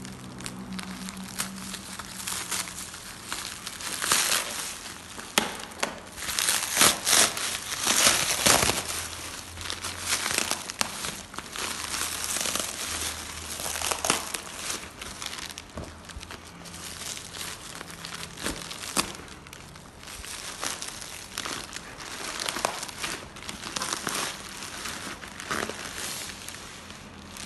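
Plastic parcel wrapping crinkling and tearing as it is cut and pulled open by hand, in irregular bursts, loudest from a few seconds in to about a third of the way through.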